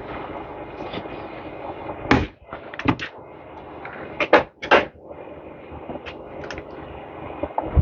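Handling noises as electrical tape is wrapped around a small-engine starter housing: several short, sharp knocks and rasps over a steady background hum, the loudest about two, three and four and a half seconds in.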